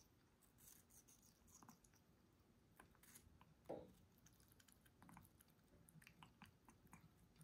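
Faint, scattered clicks and soft wet bites of an African grey parrot nibbling watermelon flesh held out in a hand, with one slightly louder, lower sound about halfway through.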